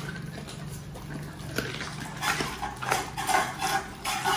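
Dogs eating raw chicken from stainless steel bowls: wet, irregular chewing and smacking that gets louder and busier about two seconds in.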